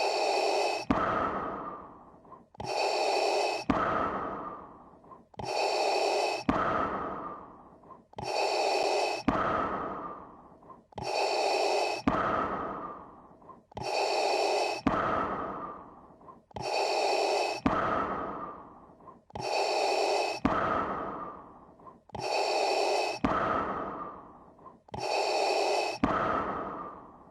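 Darth Vader's mechanical respirator breathing, the film effect made by breathing through a scuba regulator. About ten slow, even in-and-out breaths, one roughly every three seconds, each a hissing, rasping draw that starts sharply and then fades away.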